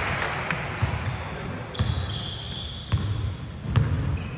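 Basketball dribbled on a gym court: a low bounce roughly once a second, with short high squeaks of shoes on the floor from about two seconds in.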